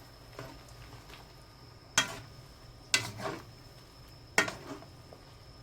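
A cooking utensil knocking and scraping against a pan while pancit canton noodles are stirred with oyster sauce. Three sharp clacks about two, three and four and a half seconds in, with brief scraping after the last two, over a faint steady hum.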